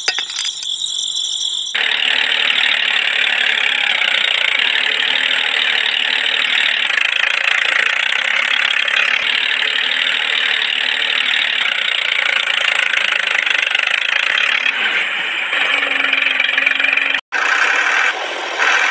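A small motor running steadily, starting about two seconds in and cutting off abruptly near the end, followed briefly by rattling.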